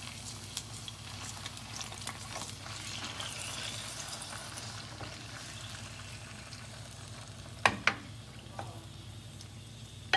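Liver marinated in soy sauce and calamansi sizzling and spattering in hot oil in a pan, with a couple of sharp utensil knocks against the pan near the end.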